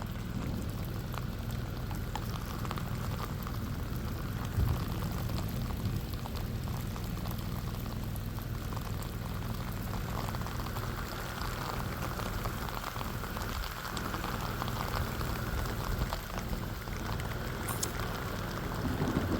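Steady rain falling, with scattered individual drops ticking through an even hiss.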